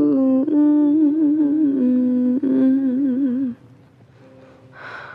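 A woman's voice from the backing song humming a slow wordless melody with wavering vibrato, stopping about three and a half seconds in. After that only faint held tones from the track remain.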